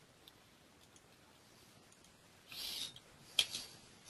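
Faint computer mouse clicks: a small click near the start, a short rustle about two and a half seconds in, then a sharper click.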